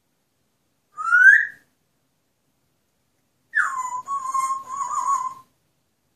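Pet parrot whistling: a short rising note about a second in, then a longer note that drops in pitch and is held, wavering, for about two seconds.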